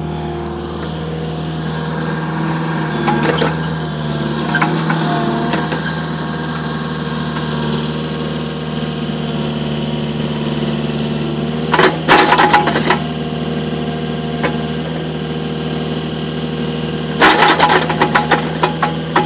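Volvo EC35 mini excavator's diesel engine running steadily while the machine is operated. Sharp clanking rattles come about twelve seconds in and again near the end, with lighter knocks a few seconds in.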